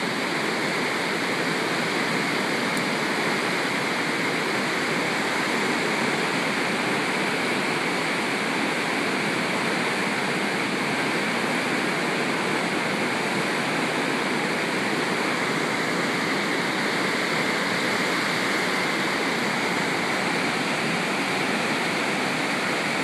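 The Clark Fork River in spring flood: fast, high water rushing and churning around trees and concrete bridge piers, a steady, unbroken roar of water.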